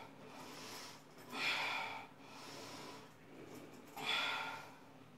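A woman breathing hard during a workout, with a loud, forceful exhale about every two and a half seconds, twice.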